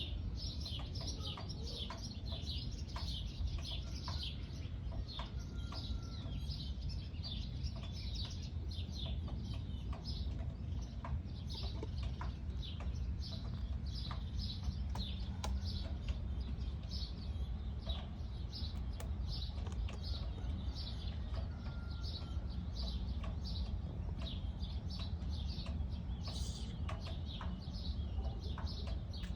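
Small birds chirping over and over, several short high calls a second, above a steady low hum.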